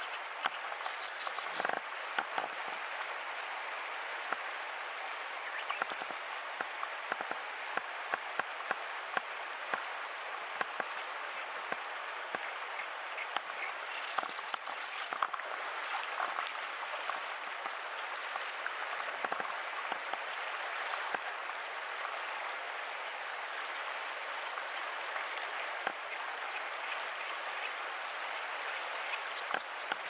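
Fast-flowing river current rushing over a shallow riffle: a steady hiss of moving water, peppered with many small splashing ticks.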